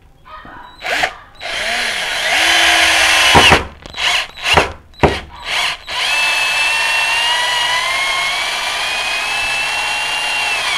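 Xenon CDD 505 cordless drill driving a screw into hard wood through its flexible shaft extension. The motor runs in a few short bursts and quick pulses, then in one long steady run of several seconds, its whine rising slowly in pitch before it cuts off.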